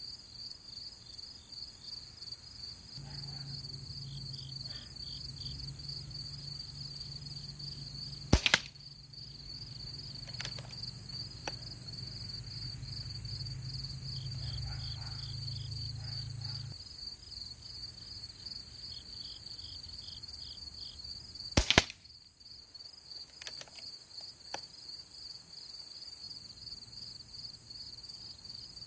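Two shots from an Air Venturi Avenger regulated PCP air rifle firing 21-grain .22 slugs, each a sharp crack about thirteen seconds apart. Insects chirp steadily throughout.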